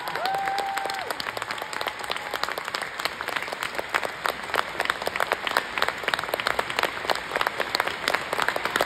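Theatre audience applauding: dense, steady clapping, with some individual claps standing out louder.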